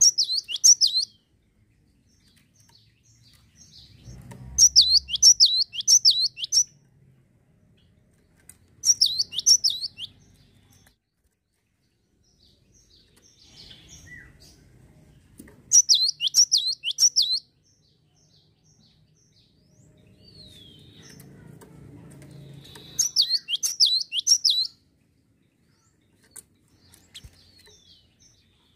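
Cinereous tit (gelatik batu) singing in five bursts of a second or two each. Each burst is a fast run of high, sharply down-sweeping notes, with several seconds of pause between the bursts.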